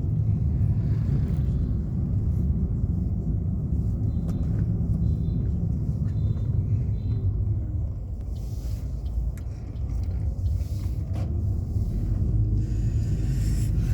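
Steady low rumble of a moving vehicle, with two brief rushes of hiss, about eight and twelve seconds in.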